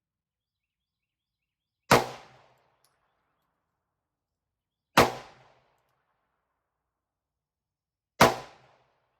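Three single gunshots at a firing range, about three seconds apart, each sharp crack followed by a short echo.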